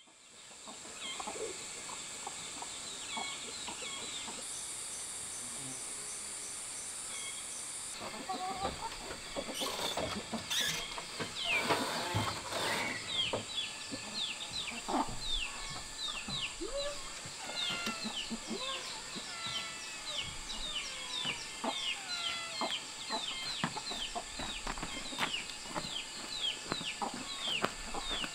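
Farmyard ambience: chickens clucking, and many short high falling chirps that come thick and fast from about halfway through, over a steady high insect drone.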